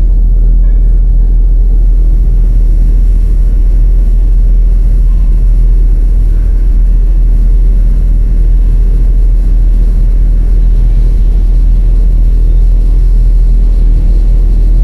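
Designed science-fiction spaceship drone from a mothership sound-effects library: a loud, steady, deep rumble that holds unchanged throughout.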